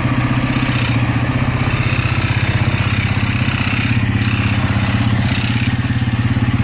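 Honda Megapro motorcycle's single-cylinder engine idling steadily, with a ticking rattle that comes from the front number plate vibrating.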